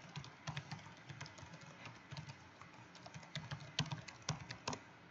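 Typing on a computer keyboard: quick, irregular keystrokes that stop shortly before the end.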